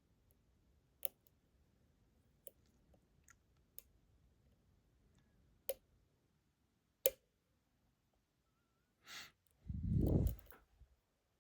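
Lock picks working inside an ASSA Guideline cylinder lock: about six faint, sharp clicks spaced a second or so apart, then a louder soft rush of noise about ten seconds in.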